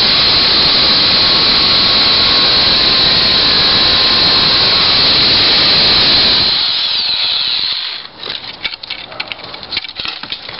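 Titan electric pole chainsaw running at full speed and cutting through a branch, a loud steady whine. About six and a half seconds in the motor is released and runs down, leaving light crackles and rustles.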